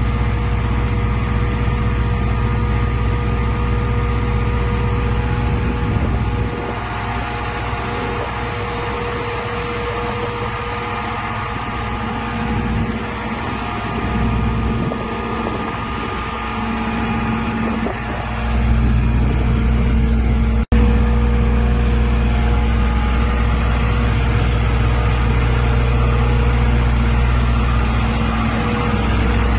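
Tadano GR300XL-1 crane's Cummins QSB5.9 turbocharged diesel engine running steadily, with a steady tone over it. The engine settles to a lower, quieter note about six seconds in and picks back up near eighteen seconds, with a momentary dropout a little after twenty seconds.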